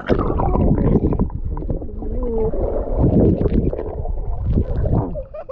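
Pool water sloshing and gurgling right at the microphone, a loud, muffled rumble.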